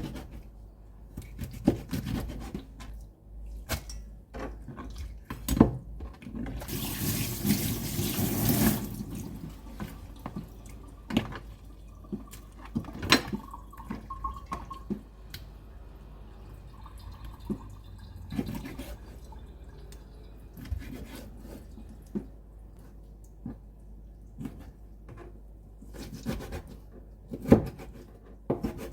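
Kitchen tap running for about two seconds, amid scattered clicks and knocks of dishes and utensils being handled.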